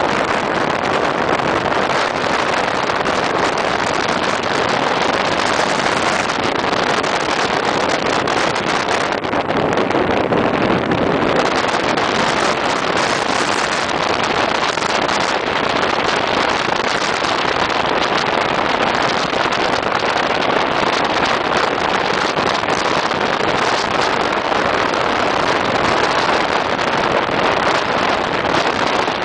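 Steady rushing of wind and road noise inside a car travelling at high speed, with the hiss thinning briefly about ten seconds in.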